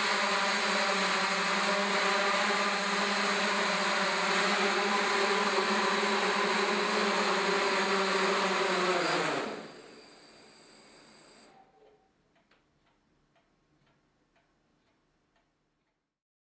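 DJI F550 hexacopter's six motors and propellers running in a steady hover, then winding down with a falling pitch about nine and a half seconds in as it lands at the end of a flight on a nearly spent 4S battery. A faint high whine lingers briefly, followed by a few faint ticks and then silence.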